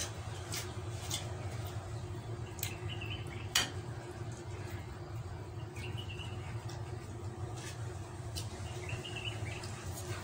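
A spoon clicking against a ceramic plate a few times while food is taken and eaten, the loudest click about three and a half seconds in, over a steady low hum. Faint short chirps come every few seconds.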